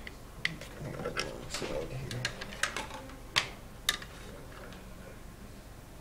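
Small sharp clicks and ticks of bare speaker wire and metal subwoofer terminals being handled as the wire is fitted into the terminals. About ten clicks come over the first four seconds, the two loudest near the end of that run, and then they stop.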